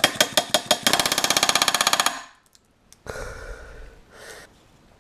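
Pneumatic rivet gun driving a solid aluminium rivet against a bucking bar: a few short taps, then a rapid rattling burst of about a second and a half. A softer noise follows about three seconds in.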